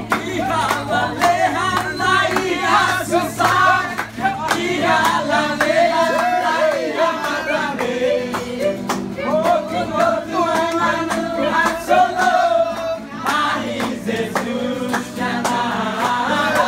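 Group singing led by a man's voice, accompanied by a strummed acoustic guitar.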